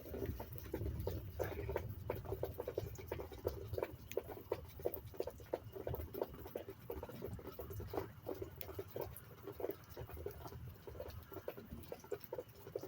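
Irregular dripping and light pattering of water just after the rain has stopped, over a low steady rumble.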